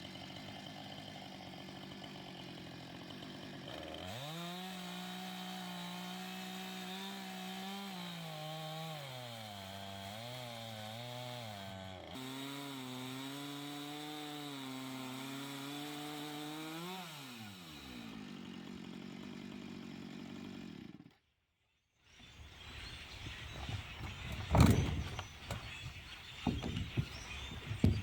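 Small chainsaw ripping lengthwise through a log, the engine held near full throttle with its pitch wavering and dipping under the load of the slow cut. About 17 seconds in, the engine drops back to a lower idle. After a short break, rustling and a few sharp knocks follow.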